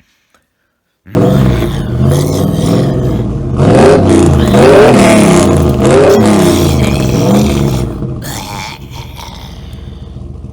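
About a second of silence, then a car engine starts abruptly and runs. It is revved up and down several times in the middle, then settles back to a steadier, quieter idle.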